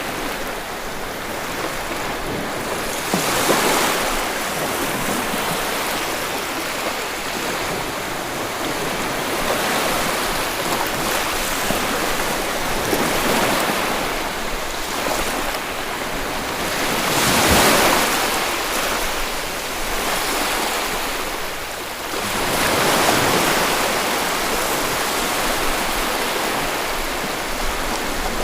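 Sea waves breaking on a beach: a steady hiss of surf with a louder wave washing in every several seconds, the strongest about two-thirds of the way through.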